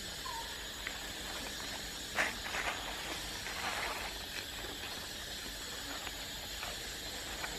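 A few short rustles and crunches of dry leaves and gravel under a young monkey's steps as it forages, the loudest a little over two seconds in, over a steady outdoor hiss.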